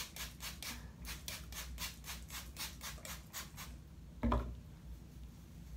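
Plastic trigger spray bottle being pumped rapidly, about four short hissing squirts a second, misting water onto hair to get it really wet; the spraying stops about three and a half seconds in.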